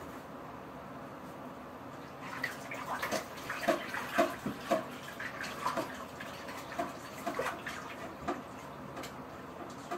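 Water splashing and trickling, a run of short irregular splashes between about two and eight seconds in.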